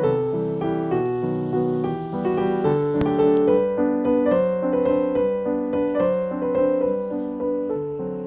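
Background piano music, a gentle melody of sustained notes over a steady accompaniment.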